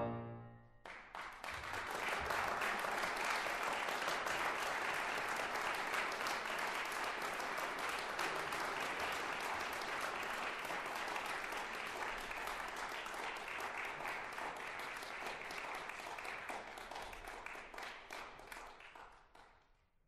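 A piano piece ends about a second in, and then a crowd applauds steadily, fading out near the end.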